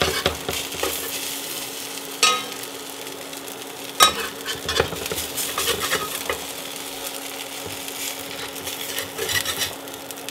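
Cheese arepas sizzling in oil in a cast iron skillet, while a metal spatula scrapes and knocks against the pan as they are lifted and turned. There are several knocks, the loudest about four seconds in.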